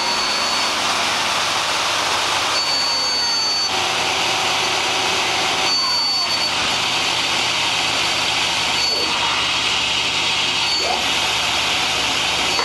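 Mazak SQT 250MY CNC turning center running, a steady loud whirring noise with a thin high whine that comes and goes several times.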